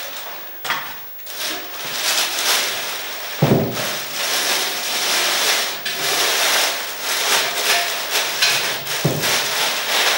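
Plastic bag wrapping crinkling and rustling as it is pulled off a cast-iron Dutch oven. Two dull thumps break in, about three and a half seconds in and again near the end.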